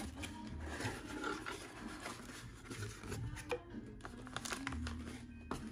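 Cardboard box flaps being opened and a plastic-bagged camera accessory handled, with crinkling and sharp little clicks, the sharpest about three and a half seconds in. Background music with a pulsing bass plays underneath.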